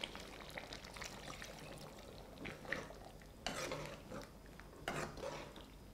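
A metal ladle stirring thick curry in a metal pot while coconut milk is poured in from a bowl: faint scrapes and clinks, with louder sloshing swishes about two and a half, three and a half and five seconds in.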